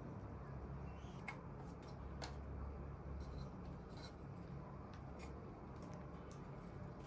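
Faint scattered clicks and light rubbing of small toy pieces being handled, over a low steady hum.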